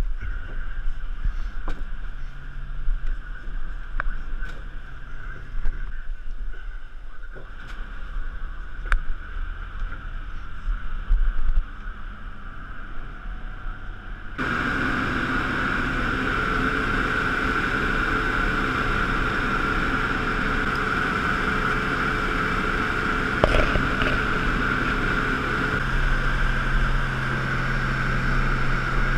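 Boat engine running steadily under wind noise, with scattered knocks and clicks from ropes and mesh pearl panels being handled in the first half. About halfway through it jumps to a louder, steadier engine drone.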